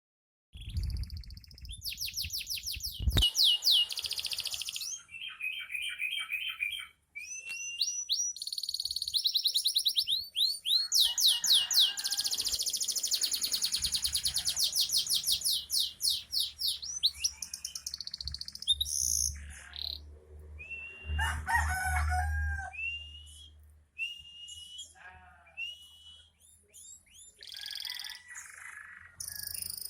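Canary singing a long, rapid song of fast trills and quickly repeated high notes, with brief pauses between phrases. The bird is in breeding condition.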